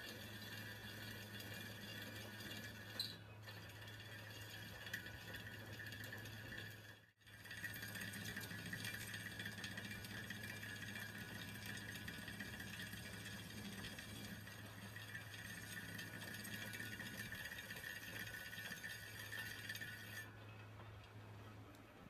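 Metal lathe running with a tractor wheel's steel centre disc spinning in the chuck, the cutting tool turning the steel. It makes a steady low hum with a high whine and hiss over it. The higher cutting sound drops away near the end while the hum goes on.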